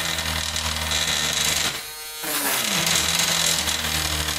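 Handheld rotary tool with a grinding bit running steadily, slowly grinding a hole into a plastic computer case cover. It drops out briefly about halfway through, then runs again.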